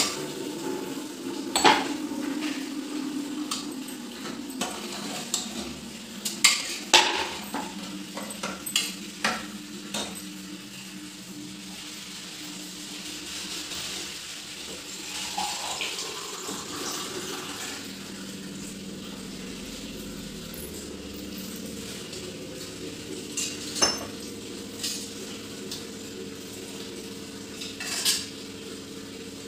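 Stainless-steel kitchen utensils and pots clinking and clattering: a scattered series of sharp metal clinks, busiest in the first ten seconds, with two more near the end, over a steady low hum.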